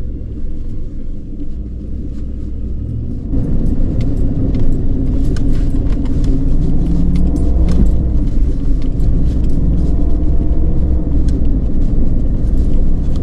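A car ploughing through deep snow, heard from inside the cabin: a steady low rumble of engine and tyres that grows louder about three seconds in, with scattered clicks and rattles.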